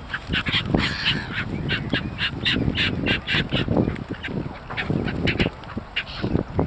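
Birds being fed, most likely waterfowl such as ducks or geese, calling in a rapid run of short calls, about three to four a second, with a low rumble underneath.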